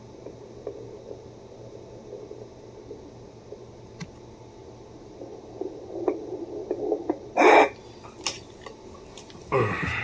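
Home fetal Doppler's speaker giving a low steady static hiss and muffled whooshing as the probe is moved over a pregnant belly, still searching, with no heartbeat rhythm picked up. A short loud burst of noise about seven and a half seconds in, and another near the end.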